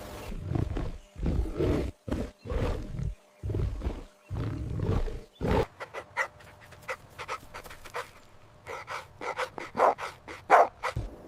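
Recorded animal calls: a run of short, low calls, each about half a second long, for the first half, then a rapid string of short, sharp sounds that are loudest near the end.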